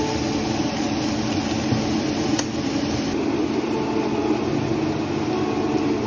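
Kitchen range hood exhaust fan running steadily.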